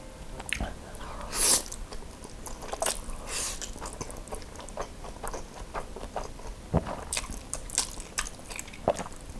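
Close-up noodle eating: spicy noodles slurped up from chopsticks, with wet chewing and lip smacks. There are two long slurps in the first few seconds, then a run of chewing clicks.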